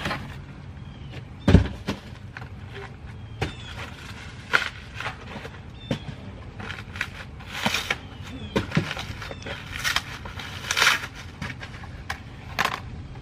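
Handling noise from a plastic radiator fan assembly being pulled out of its cardboard box and stripped of its foam packing end caps: scattered rustles, scrapes and squeaks of foam on plastic and cardboard, with a single thump about a second and a half in.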